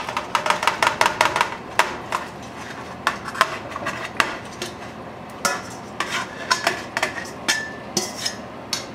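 Wire spider skimmer scraping and clinking against a stainless steel bowl and pot as cooked cabbage is pushed out of the bowl. It starts with a quick run of metal taps, then goes on as scattered clinks, and one of them rings briefly near the end.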